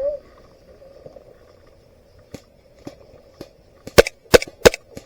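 Airsoft gun firing: a few faint distant shots, then three loud sharp shots about a third of a second apart near the end, the gun's burst (rajada) mode.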